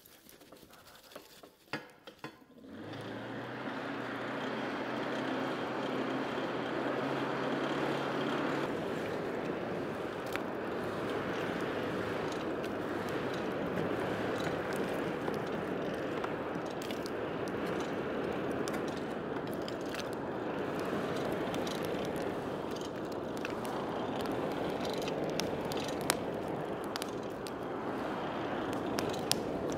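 Coal forge fire under forced air from a hand-crank blower: a steady rushing noise that starts about three seconds in, with a low hum for its first several seconds and scattered small clicks.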